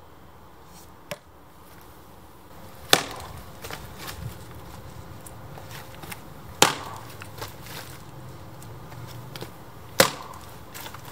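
Splitting axe with a 1.5 kg forged head chopping firewood on a chopping block. Three loud blows land about three and a half seconds apart, each followed by a few lighter knocks of wood.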